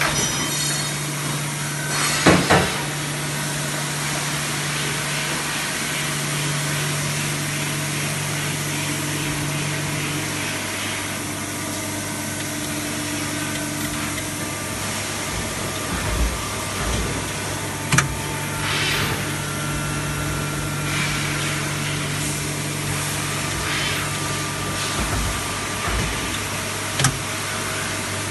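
Steady machine hum and whir of a powered-up Okuma MX55 VA vertical machining center standing idle, with a low steady tone that drops out for a few seconds midway and comes back. A few short sharp knocks break in, the loudest about two seconds in.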